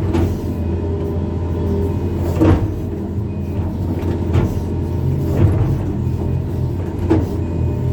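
Excavator's diesel engine running steadily, with three short knocks during the digging.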